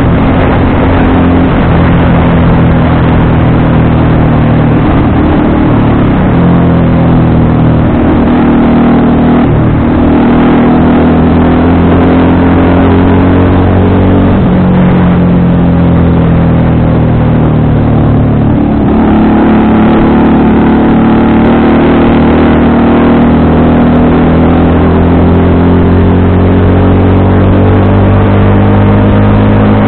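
FKM Victorino 250i V-twin motorcycle engine running under way, loud, its pitch rising and falling with the throttle; a drop about two-thirds of the way in, then a steady climb, fits a gear change.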